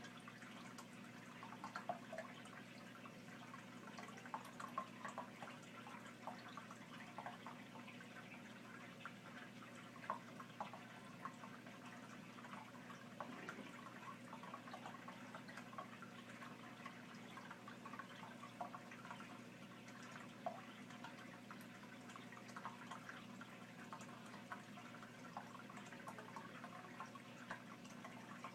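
Faint, irregular small clicks and crunches from a bearded dragon chewing its food, over a steady low hum.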